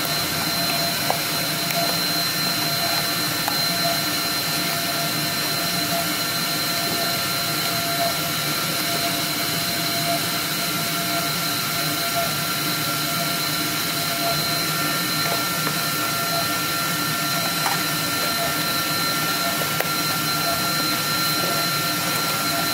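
Steady blowing hiss with a constant high whine, typical of the vacuum hold-down blower under a CNC oscillating knife cutter's table running at idle. A few faint clicks come from corrugated cardboard being folded by hand.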